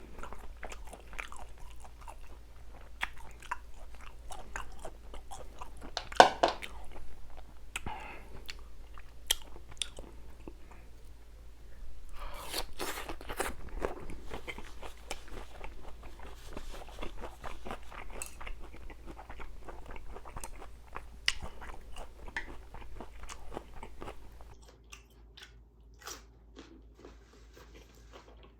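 Close-miked eating sounds: a person chewing a mouthful of food, with many short crisp crunches and wet clicks. The crunching is busiest around the middle and thins out near the end.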